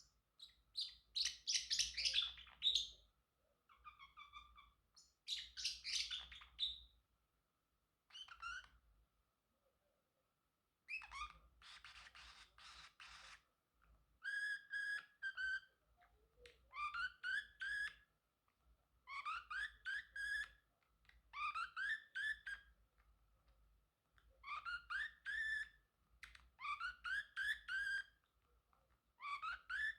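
Pacific parrotlet chirping. A few loud, harsher calls come in the first seven seconds and a raspy call in the middle. After that it repeats a phrase of three or four quick rising chirps about every two seconds.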